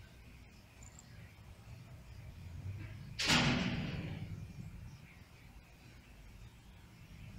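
A sudden loud whooshing rush about three seconds in, fading away over a second or so.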